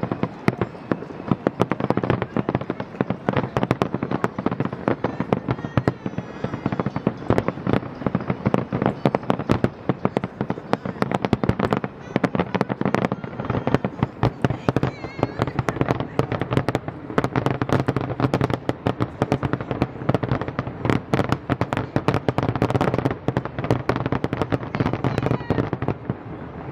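Aerial fireworks shells bursting in rapid, continuous succession: a dense barrage of bangs and crackles that stops near the end.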